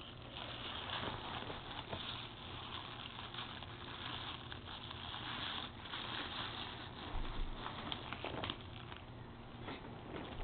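Clear cellophane wrap crinkling and rustling continuously as a baby grabs, lifts and pulls at it, with scattered sharp crackles.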